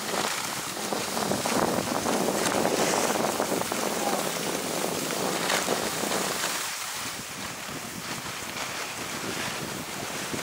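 Skis sliding and scraping over snow on a downhill run, with wind rushing over the action camera's microphone. The rushing is louder in the first half and eases a little after about seven seconds.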